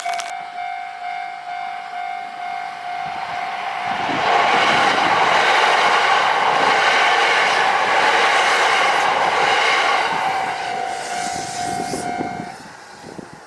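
Level crossing alarm sounding a steady electronic tone while a Shinkansen train passes through the crossing, its rush loudest from about four to ten seconds in; the alarm stops near the end.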